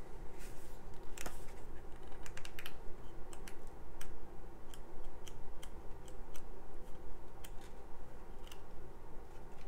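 Pages of a small printed booklet flipped through by hand: a run of light, irregular paper clicks and rustles.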